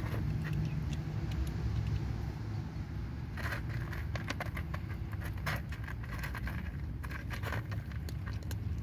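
Tuxedo cats crunching dry kibble off a cardboard box: runs of short crisp clicks and crackles that come in bunches, over a steady low rumble.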